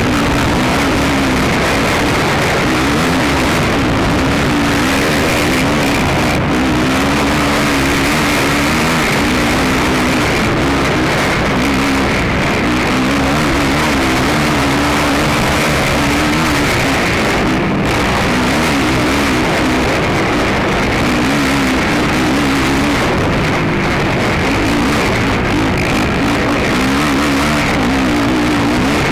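Racing ATV engine heard on board, its revs rising and falling continually as the quad is ridden hard, over a steady rushing noise.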